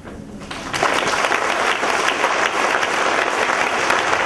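Audience applauding, starting about half a second in and quickly swelling to steady, loud clapping.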